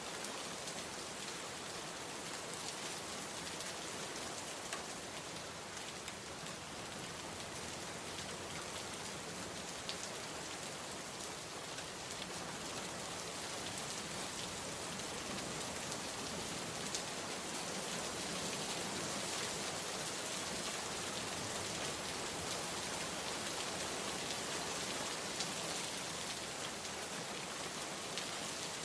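Steady rain falling, an even hiss with many fine drop ticks on surfaces.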